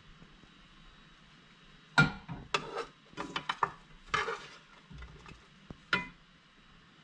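A spoon clinking and scraping against dishes: a sharp clink about two seconds in, a clatter of quick knocks over the next two seconds, and a last clink about six seconds in.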